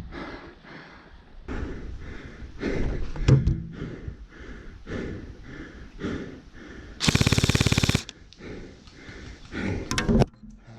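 An airsoft gun firing one rapid full-auto burst lasting just under a second, about seven seconds in. Softer irregular knocks and rustles of movement come before and after it.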